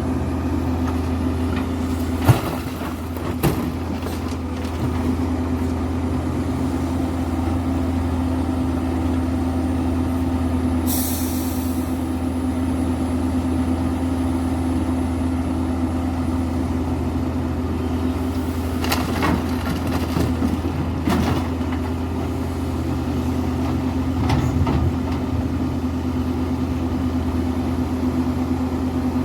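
Link-Belt excavator's diesel engine running steadily, with a few sharp metal knocks: two in the first few seconds and more around two-thirds of the way in. A short, high hiss of air comes about a third of the way in.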